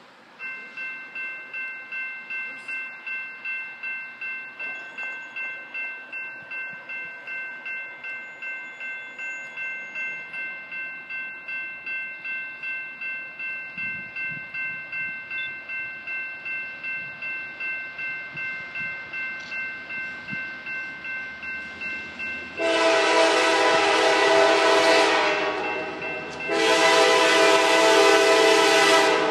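Grade-crossing warning bell ringing at about two strikes a second, starting half a second in as the crossing signals activate for an approaching train. About 23 seconds in, the Mass Coastal GP9RM diesel locomotive's horn sounds two long blasts with a short break between them, the start of its warning for the crossing, much louder than the bell.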